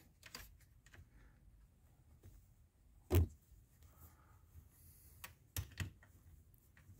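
Small clicks and scrapes of a Torx L-key working screws out of a plastic vacuum head cover, with one louder knock about three seconds in and two more near the end.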